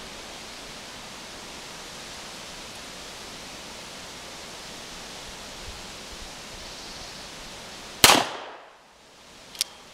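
A single shot from a Smith & Wesson Model 1917 revolver in .45 ACP, fired single action, about eight seconds in, over a steady hiss. About a second and a half later comes a short sharp metallic click as the hammer is cocked for the next shot.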